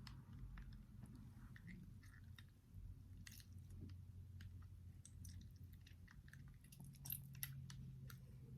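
Faint wet clicking and crackling of homemade slime being stirred and worked in a cup, many small irregular clicks.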